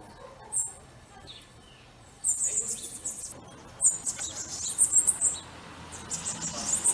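Small birds chirping, in several short spells of rapid, high-pitched chirps with brief pauses between.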